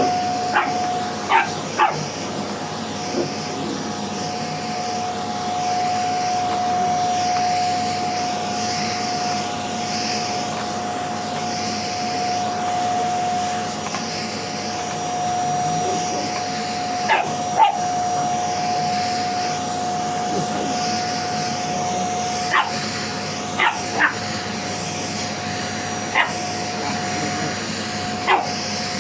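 A vacuum cleaner runs steadily with a constant tone over its airflow noise. A dog barks at it in short single and double barks, a few near the start, none for a long stretch in the middle, then several more towards the end.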